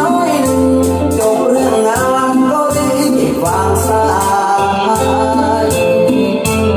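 A song played back loud through a PA system driven by an STP Technology AB3600 class AB power amplifier, with strong bass notes and percussion.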